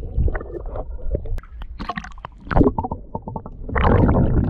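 Water sloshing and gurgling around a submerged camera: a muffled, uneven low rumble with splashy bursts about two seconds in and again near the end.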